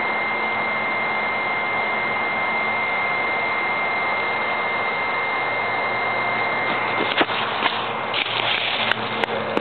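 BioLite wood-burning camp stove's built-in fan blowing steadily into the burning twigs: a constant whir with a thin high whine. A sharp knock about seven seconds in, then a few rustles and clicks.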